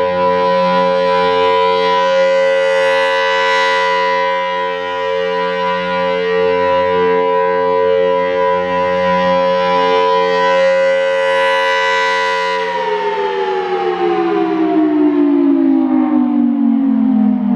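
Federal Sign & Signal Thunderbolt siren with a 5/6-port chopper sounding the steady Full Alert tone, swelling brighter twice as the rotating head sweeps past. About 13 seconds in the tone begins to fall steadily in pitch as the siren shuts off and winds down, ending the alert.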